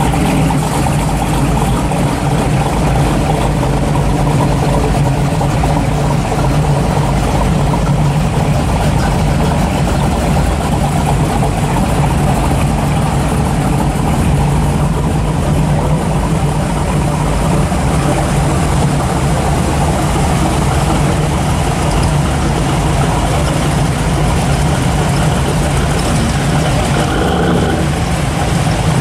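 Classic American cars' V8 engines running loudly and steadily at low speed as the cars roll by one after another: a third-generation Pontiac Firebird, a C2 Corvette Sting Ray coupe and a 1967 Chevelle SS.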